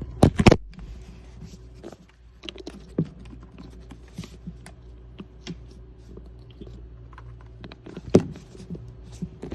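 Plastic clicks and knocks of handling a small travel electric kettle while its power cord's end is fitted into the back, with a couple of sharp clicks right at the start and one loud click about eight seconds in.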